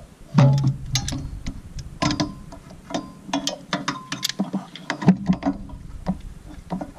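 Steel vice grips (locking pliers) clamped on a small steel tab, clicking and clanking irregularly against the metal as they are worked and twisted. The grips knock against the bull bar as they rotate, so the tab will not bend.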